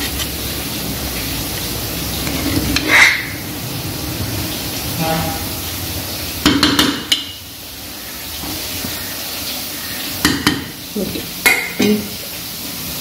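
Food sizzling steadily in a frying pan, with a spoon clinking and scraping against the pan several times, roughly every few seconds, as it is stirred.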